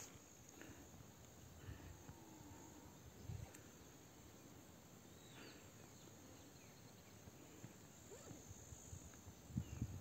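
Near silence with faint, steady, high-pitched insect chirring, and a few soft rustles or footfalls.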